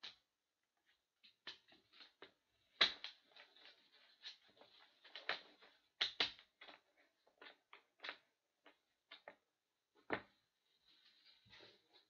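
Trading cards and foil card packs being handled: irregular soft clicks, taps and rustles, the sharpest about three, six and ten seconds in.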